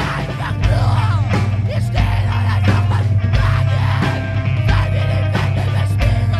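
Screamo band recording: distorted electric guitars, bass and drums playing loud and dense, with regular drum hits.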